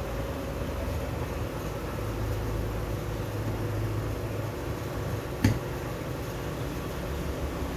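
Steady low workshop hum with one sharp click about five and a half seconds in, as parts of a turbocharger are assembled on the bench.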